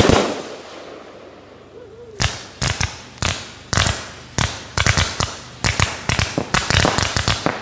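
A firework shell bursts with a loud bang that fades away. About two seconds later a multi-shot firework cake starts firing: a run of sharp reports that quickens as it goes.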